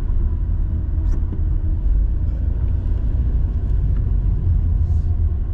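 Steady low rumble of a car driving on a wet road, heard from inside the cabin, with a few faint ticks.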